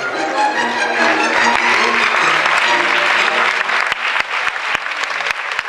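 Audience applauding over background show music. The applause builds about a second in and eases off near the end, while the music's notes carry on underneath.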